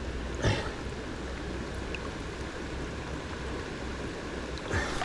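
River water running steadily, with a brief knock about half a second in.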